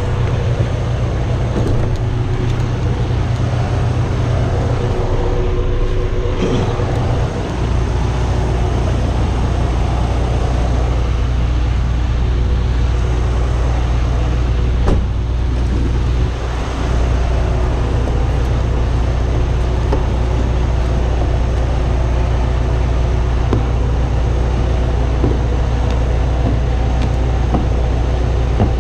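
Semi-truck diesel engines idling: a steady low drone, with a few faint knocks on top.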